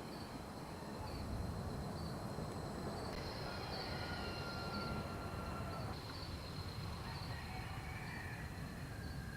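Insects trilling steadily on one high pitch, with short chirps about once a second, over a continuous low background rumble.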